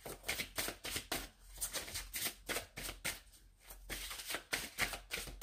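A deck of cartomancy cards being shuffled by hand: quick, uneven clicks of cards slipping against each other, with brief pauses.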